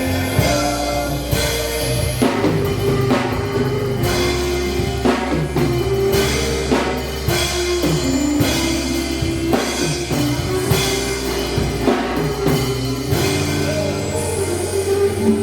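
Church band music with a drum kit keeping a steady beat, about one hit a second, under held bass notes and a moving melody line.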